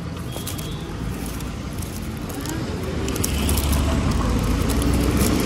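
Road traffic rumble, growing louder from about three seconds in, with faint crackles of plastic strapping being handled and knotted.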